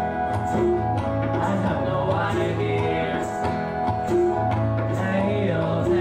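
Live acoustic music from a small band: strummed acoustic guitar and struck tabla under a voice, over a steady low drone with a held higher tone.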